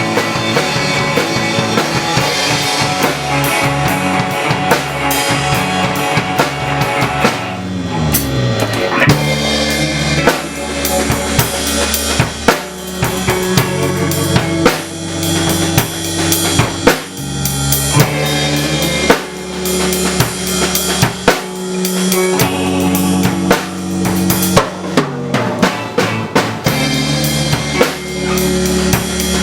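Music with drum kit: bass drum and snare beating under bass and other pitched instruments, with a run of descending bass notes about eight seconds in.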